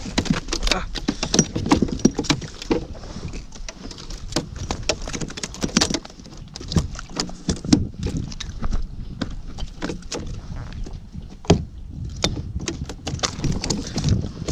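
Irregular knocks and clicks of handling on a fishing kayak, over a steady low rumble.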